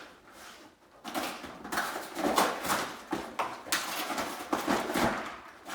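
A dog tearing and shredding cardboard from a food puzzle box: irregular ripping and crackling that starts about a second in.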